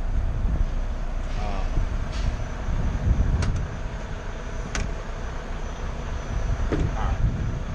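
Wind buffeting the microphone with a steady low rumble, and a couple of sharp clicks from a motorcoach's cargo bay door latch being worked open, about three and a half and five seconds in.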